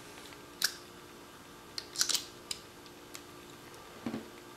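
Light clicks and taps of a screwdriver and a wooden rifle buttstock being handled on a workbench, a handful of short sharp ticks with the busiest cluster about two seconds in, over a faint steady hum.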